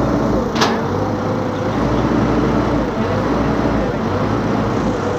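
Heavy machinery's diesel engine running steadily, with a sharp click about half a second in.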